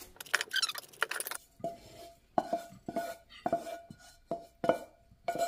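A knife scraping butter over a toasted bagel, then a wooden spatula scraping and knocking scrambled eggs out of a non-stick frying pan onto a plate. From about a second and a half in there is a string of short clanks, each ringing briefly, about two a second.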